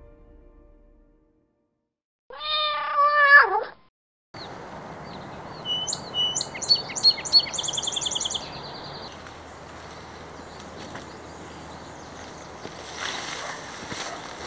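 A single drawn-out, meow-like animal call about two seconds in, bending in pitch. Then steady outdoor ambience, with a songbird singing several chirps and a short, fast, high trill.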